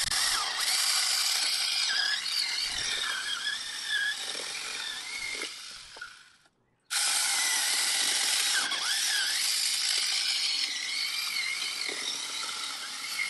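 Seyvum 12-volt cordless mini chainsaw cutting through a birch log: a high electric whine whose pitch wavers and dips as the chain bites the wood. The saw stops a little past halfway, then starts again for a second cut.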